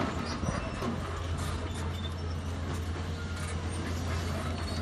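Volvo crawler excavator's diesel engine running with a steady low drone while the boom and arm lower the wide slope-trimming bucket to the ground.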